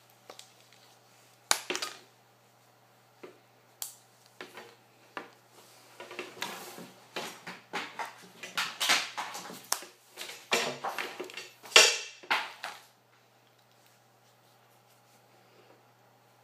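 Handling noise close to the microphone: scattered clicks and knocks, then a dense run of clattering and rustling lasting several seconds, with the loudest knock near its end. It comes from a plastic hair straightener and the recording device being handled.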